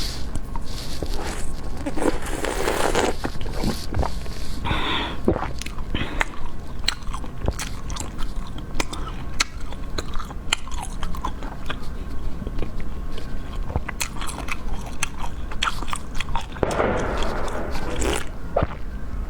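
Close-miked eating of Chinese cakes: biting and chewing with many small, crisp clicking and crunching mouth sounds, over a low steady hum.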